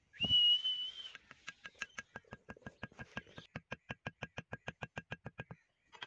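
A high, steady whistle lasting about a second, then a fast, even run of knocks, about seven a second: the back of a hoe hammering a wooden stake into the ground.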